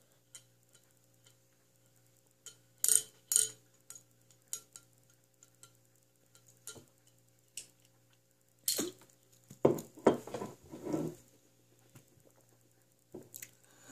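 Scattered light clinks and knocks from a glass Ramune soda bottle being handled, with a short muffled rustle about ten seconds in.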